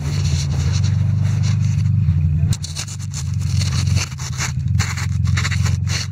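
A steady low engine drone with irregular scraping and crunching noises over it.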